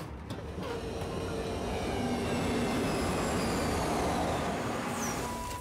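A passenger train rushing past along a station platform: a rushing noise that builds over the first couple of seconds, holds, and falls away near the end, with faint high whines that slowly drop in pitch. A brief knock comes at the very start.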